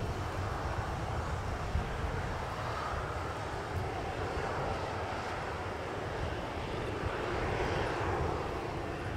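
Jet engines of a Boeing 737-800 (CFM56-7B turbofans) heard from outside the airfield as the airliner rolls out on the runway after touchdown: a steady roar with a deep rumble, swelling a little near the end.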